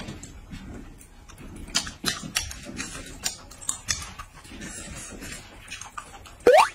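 Eating at a table: chopsticks clicking against bowls and mouth sounds of noodles being eaten, heard as a scatter of sharp clicks. Near the end comes a short, loud rising whistle-like tone.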